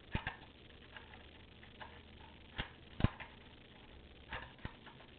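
Scattered light clicks and knocks of small shotgun parts being handled: the bolt and a little black brace being fitted onto the slide arms of a Remington 887 pump shotgun. About six clicks, the sharpest about three seconds in.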